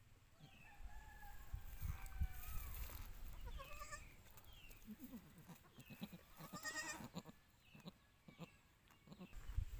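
Faint, high, short bleats from newborn goat kids, heard several times as falling cries. A low rumble sounds about a second in and lasts a couple of seconds.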